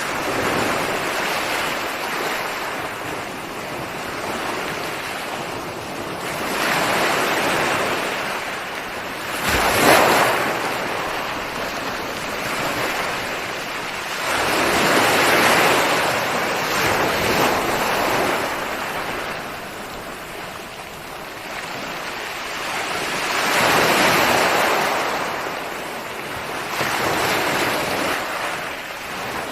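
Ocean surf: waves breaking and washing up the shore in slow swells every several seconds, with one sharper crash about ten seconds in.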